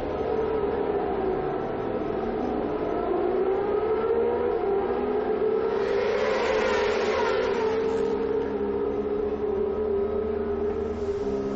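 A pack of 600cc sport motorcycles accelerating hard off a standing race start, the engines' high whine climbing in pitch as they pull through the gears. About six seconds in the noise swells as bikes rush close past and away.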